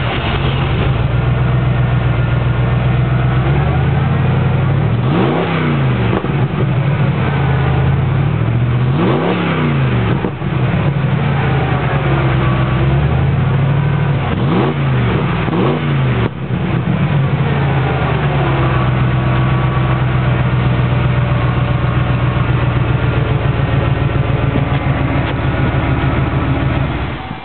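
1994 Ford SVT Lightning's 5.8-litre V8 idling through Bassani headers and a MagnaFlow exhaust, blipped several times with quick revs that rise and fall back to idle. The engine sound drops away near the end.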